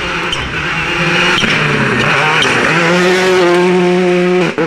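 Rally car at full throttle on a gravel stage, its engine revs climbing steadily in the second half, over the hiss of tyres spraying gravel. The sound breaks off abruptly just before the end.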